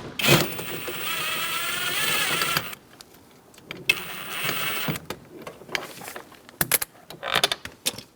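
Small cordless power driver with a T27 Torx bit whining as it backs out a door-handle bolt, running for about two and a half seconds, then again briefly about a second later. A few light clicks and knocks of the tool and bolt follow.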